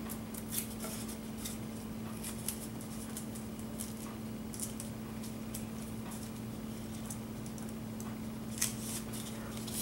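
Faint scattered clicks and rustles of double-sided tape and small plastic model parts being handled and pressed in place, over a steady low electrical hum.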